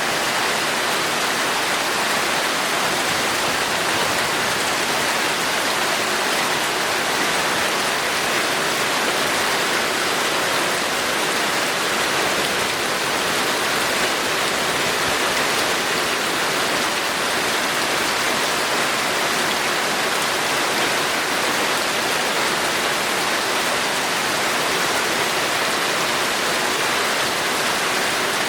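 Torrential rain falling steadily, a dense, even wash of sound that holds at the same level throughout.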